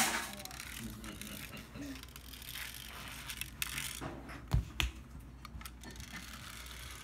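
Plastic pull-back toy trike's clockwork pull-back motor clicking and rattling as it is wound on a wooden floor and released, with two dull thumps about four and a half seconds in.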